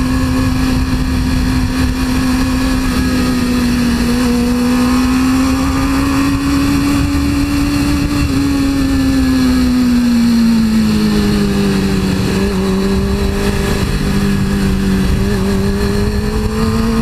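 A 2002 Suzuki GSX-R 600's inline-four engine runs at a steady cruise. Its note climbs a little, eases down about twelve seconds in, then holds steady, with wind rushing over the microphone throughout.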